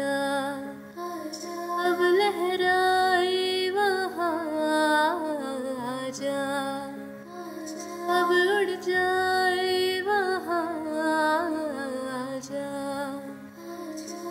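Slow, gentle music: a sliding, ornamented melody line over long held chords, with no words sung.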